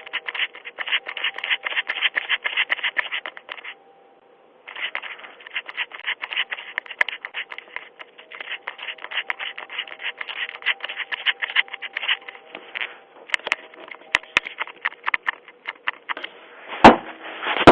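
Rapid, dense scratching and scraping right at a Ring video doorbell's microphone, broken by a short pause about four seconds in. Two loud bangs on the door near the end.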